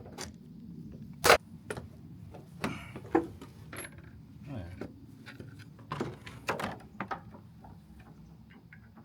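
Irregular metal clicks and clinks of small door-latch hardware and screws being handled and driven in while a screen door latch is installed, with one sharp knock about a second in.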